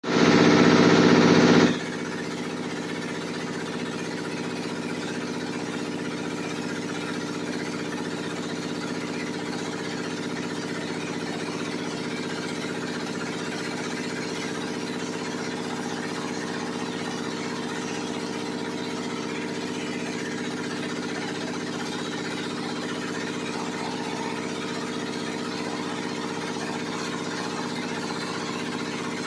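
Two-disc coffee pulper and washing machine running with a steady, even mechanical hum. It is louder and brighter for about the first second and a half, then settles to a constant level.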